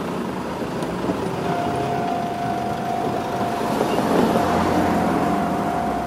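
A level-crossing alarm starts about a second and a half in and rings steadily, signalling an approaching train. Under it, road vehicles drive past over the crossing, loudest about four seconds in.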